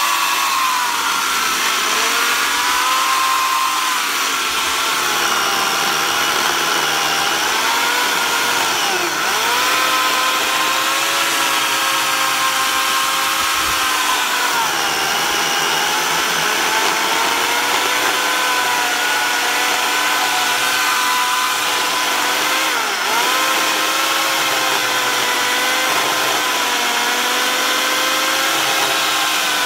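Makita chainsaw cutting steadily through a green cherry log, slicing off a slab. Its pitch dips briefly and recovers twice, about ten seconds in and again past the twenty-second mark.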